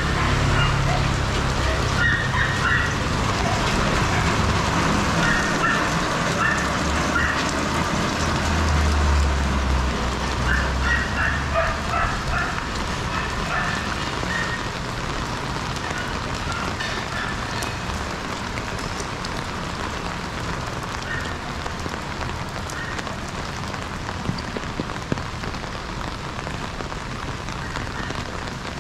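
Steady rain falling and pattering on street surfaces, with a low engine rumble under it during roughly the first half that then fades away.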